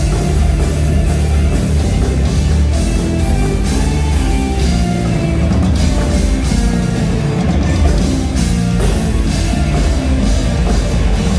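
Rock band playing loud amplified music on electric guitars and a drum kit, with steady drum hits under sustained guitar and bass notes.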